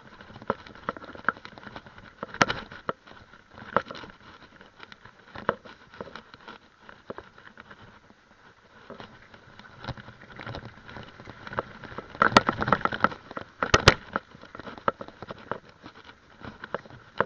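Mountain bike rattling and clattering as it rides fast over a dirt forest trail: irregular sharp knocks and clicks as it jolts over bumps, with a busier run of hard knocks about twelve to fourteen seconds in.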